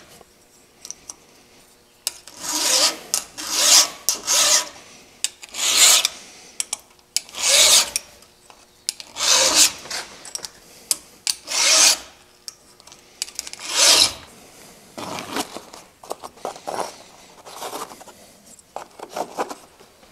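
Flat file rasping across a chainsaw chain's depth gauges (rakers) through a depth-gauge plate, in separate strokes about every one and a half to two seconds that grow fainter after about fifteen seconds. The gauges are being filed down so the sharpened teeth can bite into the wood again.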